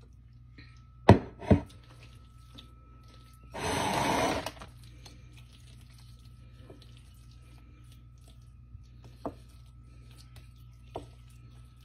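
A serving spoon knocks sharply twice against glassware. Then comes about a second of rushing, scraping noise as a creamy pasta mixture is scraped out of a mixing bowl and spread in a glass baking dish, with a few light spoon clicks later.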